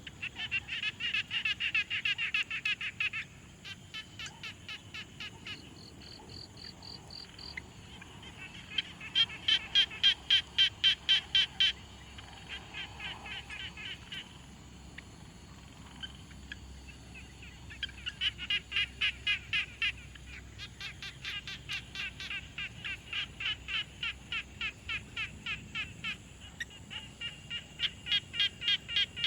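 A chorus of frogs calling: bouts a few seconds long of rapid, evenly pulsed calls, with several callers overlapping and some louder than others. A short, steady high-pitched buzz joins in about six seconds in.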